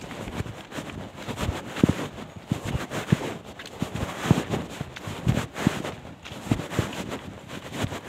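Wind buffeting a phone microphone: a constant rush broken by irregular low thumps.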